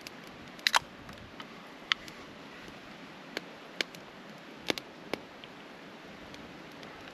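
Split wood burning in a small folding firebox stove, crackling with irregular sharp snaps over a faint steady hiss; the loudest is a close double snap about a second in.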